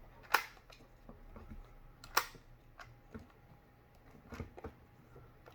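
Clicks of a jigsaw blade being fitted into the Ryobi JS481LG's quick-release blade clamp: two sharp clicks about two seconds apart, then a few softer taps and clicks.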